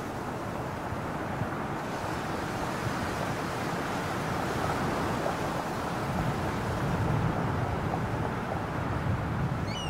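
Steady outdoor rushing of wind and surf, swelling a little about seven seconds in, with a brief high chirp near the end.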